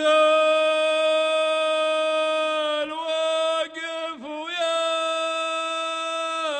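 A man singing an unaccompanied chant. He holds one long note, breaks into a few quick ornamented turns about three seconds in, then holds a second long note.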